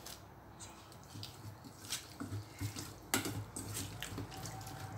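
A spatula stirring a wet salad dressing in a stainless steel bowl: squelching with scattered clicks of the spatula against the metal, the sharpest a little after three seconds.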